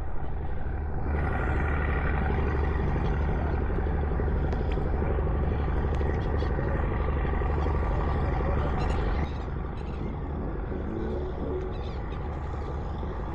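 Steady low rumble of a nearby tourist boat's engine, dropping a little in level about nine seconds in.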